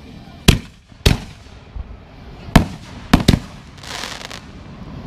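Consumer aerial fireworks bursting overhead: five sharp bangs in the first three and a half seconds, the last two close together, then a brief crackling spell about four seconds in as a glittering shell breaks open.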